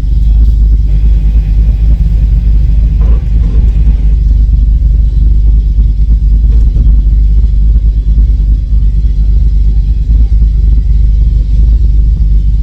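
Off-road vehicle driving, heard as a loud, steady low rumble.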